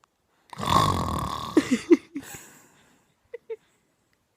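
A man snoring loudly: one long, rough, rattling snore lasting about a second and a half, starting about half a second in.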